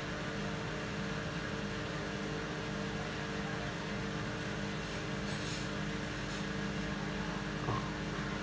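Bosch WAT28370GB front-loading washing machine in its intermediate spin: the drum spins at a steady speed, with a steady motor hum over the even noise of the spinning drum. A single short knock comes near the end.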